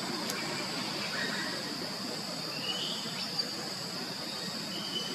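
Steady high-pitched insect chirring, with a few short chirps over it and one sharp click just after the start.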